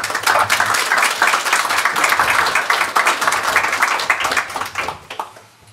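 A roomful of seated people applauding, the dense clapping dying away near the end.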